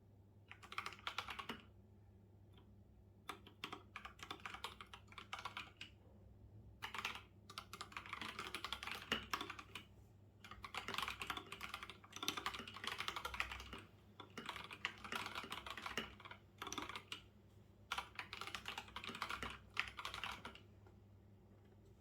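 Typing on a computer keyboard: runs of rapid keystrokes a few seconds long, broken by brief pauses.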